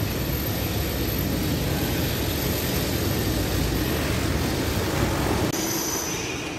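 Steady outdoor background noise: a low rumble with hiss above it. It drops away abruptly about five and a half seconds in, leaving a quieter background with a faint high steady tone.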